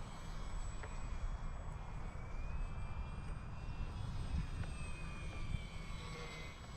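Electric RC airplane's motor and propeller whining overhead, its pitch gliding up and then falling as it passes and the throttle changes, under a steady low rumble of wind on the microphone.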